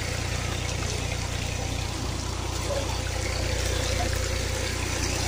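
Tubewell irrigation water rushing and splashing over stones in a field channel, a steady even rush, with a constant low hum underneath.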